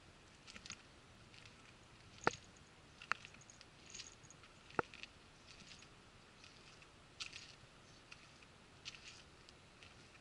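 Faint, irregular scuffs and clicks of someone walking with a handheld camera, with three sharper clicks between about two and five seconds in.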